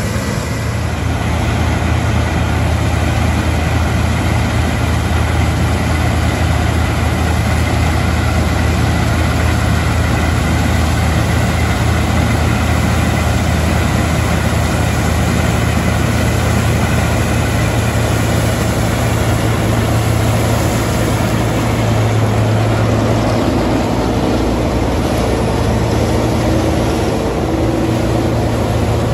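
Combine harvesters working in rapeseed (a New Holland CX8.90, then a Claas Tucano 440 close by): steady engine and threshing hum. A few extra mechanical tones come in during the last seconds.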